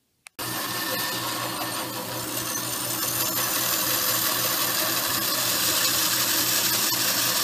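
Bandsaw running and cutting a curve through a piece of pine 2x4: a steady motor hum under the dense whir of the blade in the wood, slowly growing louder. It starts abruptly just after a short click.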